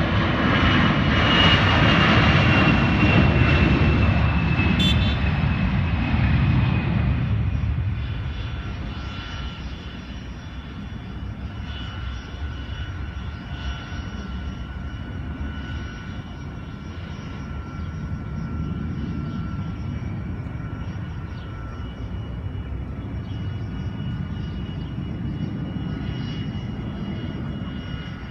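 Airbus A320's twin turbofan engines at takeoff power as the jet rolls and climbs out. It is loud for the first seven seconds or so, with a whine slowly falling in pitch, then drops to a quieter, steady rumble from about eight seconds in as the jet climbs away. There is one sharp click about five seconds in.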